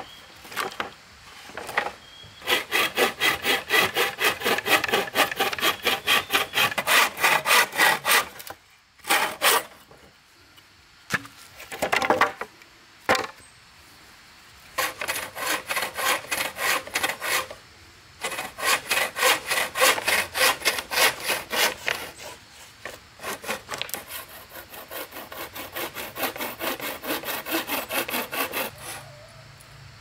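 Hand saw cutting wood in quick back-and-forth strokes, about four a second, in three long runs broken by short pauses, with a few separate knocks in between.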